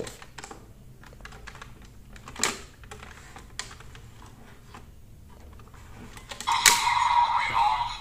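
Plastic clicks and rattles as a DX Desire Driver toy belt is turned over for its revolve function. About six and a half seconds in, the belt's speaker starts loud electronic sound effects and music.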